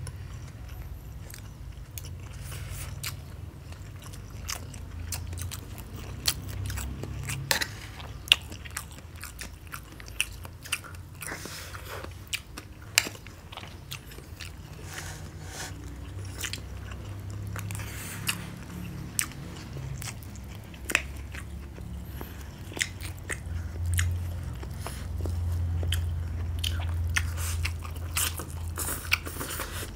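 Close-up chewing and biting sounds of people eating fried rice, with sharp clicks and scrapes of metal spoons against ceramic plates scattered throughout.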